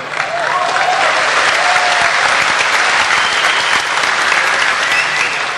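Audience clapping in response to a punchline, with a few voices rising over the applause in the first couple of seconds.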